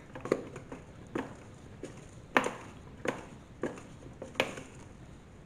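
A wooden spoon stirring sticky bread dough in a plastic mixer bowl, knocking against the bowl in short sharp taps about every half to three-quarters of a second, the loudest about two and a half seconds in.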